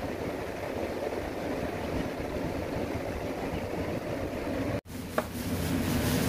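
Steady low rumbling hum of machinery-like background noise, broken by a sudden dropout almost five seconds in and followed by a single sharp click.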